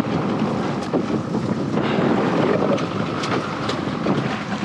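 Wind buffeting the microphone and water rushing past an open panga's hull as it runs through choppy seas, a steady loud rush with a few short knocks.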